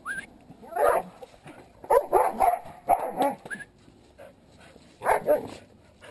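Dogs barking in about four short bouts, the last one near the end.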